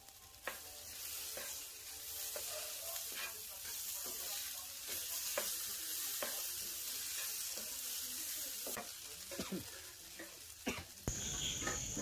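Potato and onion masala sizzling in a hot frying pan while a wooden spoon stirs it, knocking and scraping against the pan about once a second.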